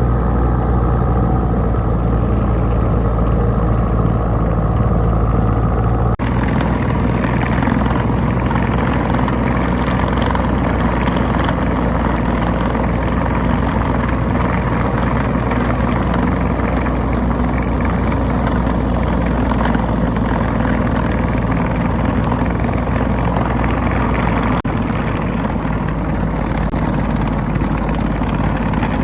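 Tucker Sno-Cat's Isuzu 4BD1T four-cylinder turbo diesel running steadily under way. The sound changes abruptly about six seconds in and again near the end.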